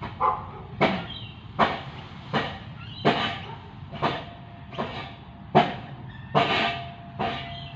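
Regular sharp knocks, a little under one a second, over a steady low hum.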